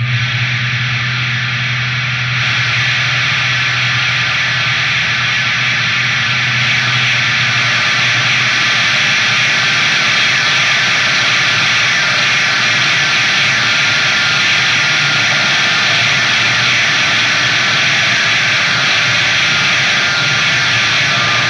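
Electric guitar drone and feedback through Orange amplifier stacks: a loud, steady wall of distorted noise with no beat. A low hum underneath fades out over the first several seconds.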